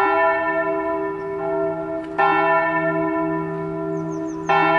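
A church bell tolling: three strokes about two seconds apart, each one ringing on and slowly fading into the next over a steady low hum.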